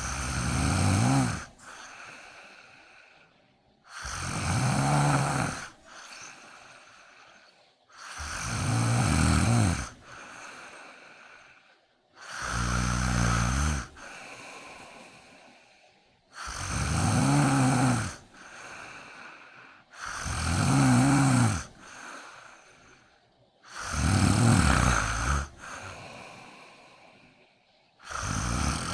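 A sleeping cat snoring. A loud, pitched snore comes about every four seconds, each followed by a softer, breathy breath.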